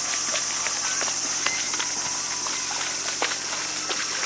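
Reindeer wading through shallow water, its hooves splashing in quick irregular steps, over a steady high buzz of insects.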